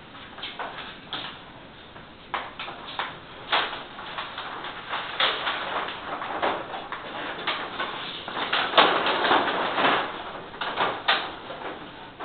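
Rustling and rubbing of a whiteboard sheet as hands press and smooth it onto a wall: many irregular short scrapes, with a longer stretch of rubbing about nine seconds in.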